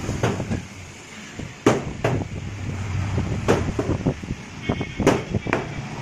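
Heavy knife chopping through a parrotfish fillet into a wooden log chopping block: a series of sharp, irregularly spaced knocks, over a steady low background noise.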